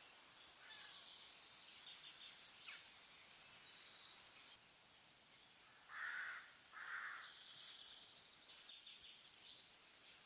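Faint forest ambience of small birds chirping and twittering high and soft, with two louder, lower calls about a second apart around six seconds in.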